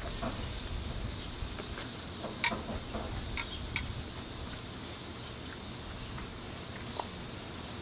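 Scattered light metallic clicks and clinks of hand tools and scooter parts being handled during front-fork work, irregular rather than a steady ratchet rhythm, over a low background hum.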